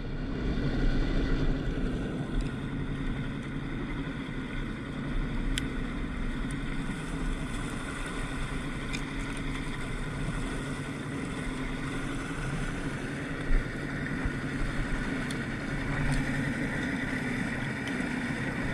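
Outboard motor running steadily at trolling speed, with water churning past the hull and wind rumble on the microphone. A brief thump sounds about two-thirds of the way through.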